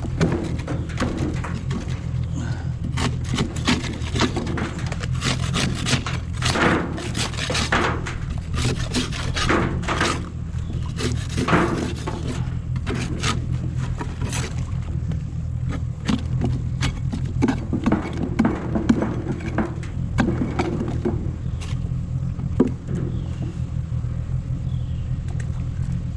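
Scraping, rubbing and light knocking on a wooden wood duck nest box as its contents are handled, the sharp scrapes thickest in the first half, over a steady low rumble.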